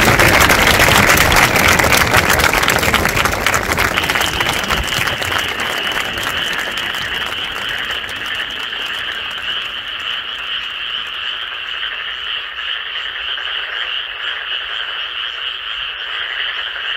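Applause dies away over the first few seconds. It gives way to a steady, high-pitched chorus of calling animals that carries on to the end.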